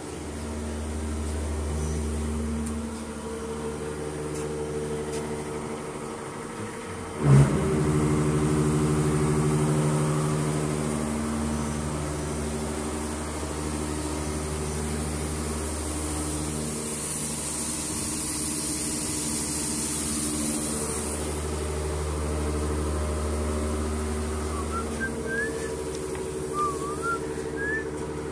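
Machine-shop machine tools running: a steady, layered motor hum, with one sharp bang about seven seconds in and a loud hiss for a few seconds a little past the middle. A few short rising squeaks near the end.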